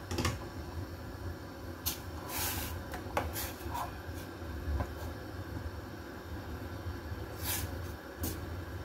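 A silicone spatula stirs soup in a stainless steel saucepan, giving short, irregular scrapes and knocks against the pot, over a steady low hum and hiss.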